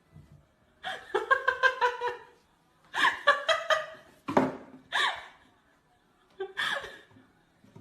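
A person laughing in several bursts of quick, repeated pulses, with quiet pauses between them.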